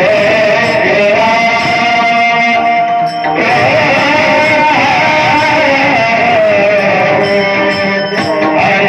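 Marathi bhajan music: a held melodic line over instrumental accompaniment, turning into a winding, ornamented melody about three and a half seconds in.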